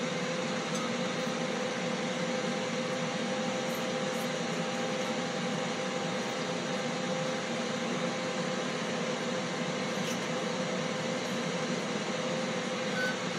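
Steady mechanical hum of a running appliance or fan, with one steady mid-pitched tone through it and a few faint clicks.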